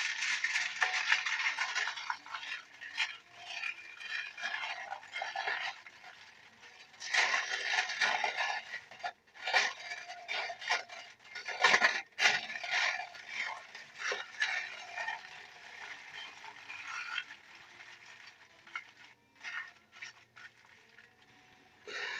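Aluminium foil crinkling and rustling in irregular bursts as it is folded and pressed tightly around a piece of meat, with a few sharp crackles; it grows quieter towards the end.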